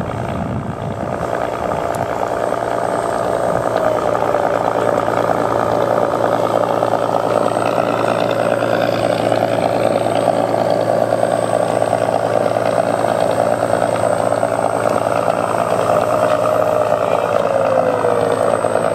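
A TBS Mini sound module in a P-40 model plays a simulated Packard-Merlin V-1650-1 V12 engine through its speaker, running steadily. It grows a little louder over the first few seconds.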